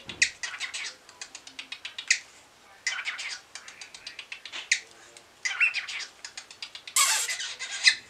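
Cockatiel chirping and chattering in short calls, with runs of rapid clicking between them and a louder burst about seven seconds in.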